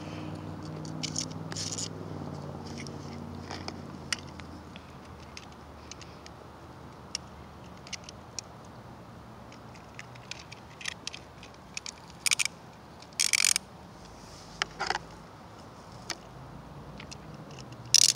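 Hard plastic Beyblade parts and launcher being handled and fitted together: scattered sharp clicks and scrapes, with a few louder short rasps in the second half. A faint low hum fades out over the first few seconds.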